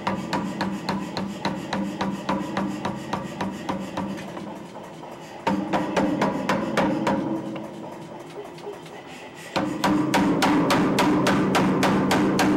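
Power hammer pounding a hot W1 steel bar in a fast, even rhythm of about five blows a second, drawing out a knife blade. The blows get louder about five seconds in and again near the end.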